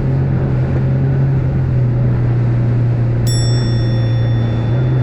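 Boat's outboard motor running with a steady low hum at reduced revs, the sign of a bent propeller. About three seconds in, a single metallic ding rings out and fades slowly.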